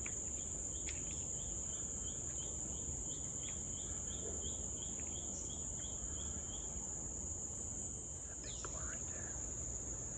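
Tropical rainforest insects droning steadily at a high pitch, with a quick repeated chirp at about four a second that stops about two-thirds of the way through, and a few short calls near the end.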